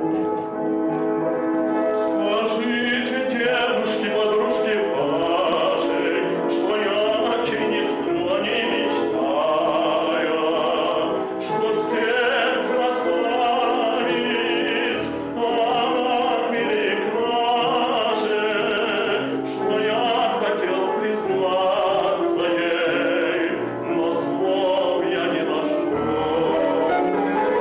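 A male baritone singing in operatic style with piano accompaniment; the piano plays alone at first and the voice comes in about two seconds in, singing with vibrato.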